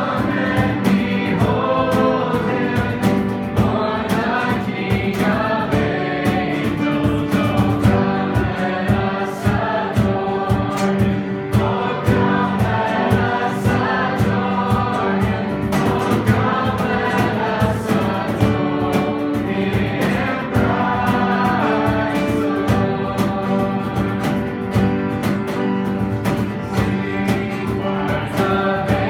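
Worship song: several voices singing together over held chords and a steady rhythmic accompaniment.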